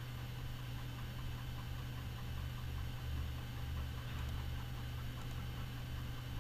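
Steady low hum with an even hiss behind it and faint, regularly spaced ticks: background machine or electrical noise with no speech.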